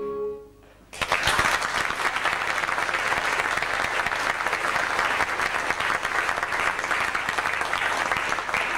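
A held orchestral note dies away at the end of a musical number, then a theatre audience starts applauding about a second in and keeps clapping steadily, easing off near the end.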